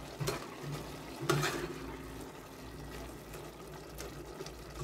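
Chicken pieces simmering and bubbling in a stainless-steel pot, stirred with a metal ladle that scrapes briefly about a third of a second in and again about a second and a half in.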